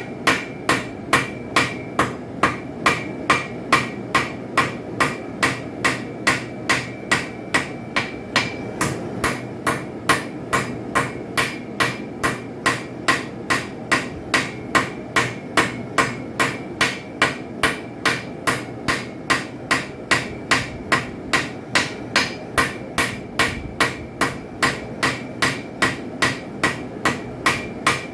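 Hand hammer striking a hot railroad spike on an anvil in a steady rhythm of about two blows a second, each blow with a short metallic ring, over a steady rushing noise underneath.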